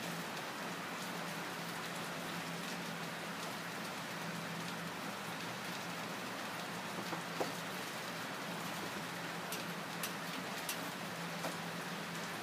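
Steady background hiss with a faint low hum and a few soft ticks in the second half.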